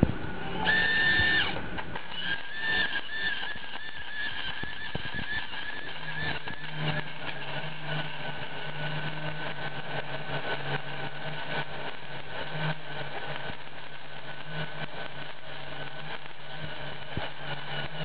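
Flux-core wire-feed welding arc from a spool gun run off two car batteries at 24 volts with .030-inch flux-core wire. The arc strikes about a second in, then burns with a steady crackle, and a steady low hum joins from about six seconds in.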